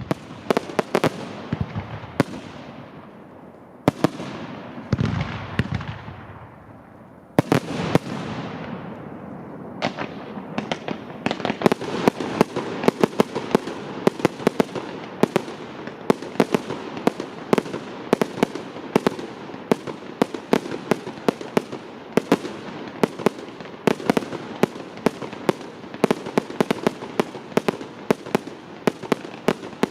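Fireworks display: shells bursting with sharp bangs and echoing tails, one deeper boom about five seconds in, then from about ten seconds in a dense barrage of rapid bangs, several a second.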